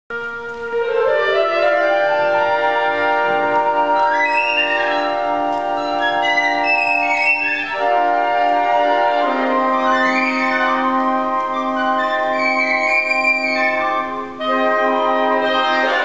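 Symphonic wind band playing slow, sustained chords. The opening single note fans out into a full chord within the first second or two, and the harmony shifts about eight and nine seconds in. The vacuum cleaners and floor polisher have not yet entered.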